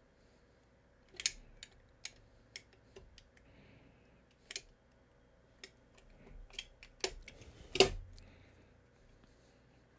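DeWalt snap-off utility knife blade cutting a notch into a hard plastic kite winder, a string of sharp irregular clicks and snaps as the blade bites and cracks through the plastic. A louder knock comes about eight seconds in.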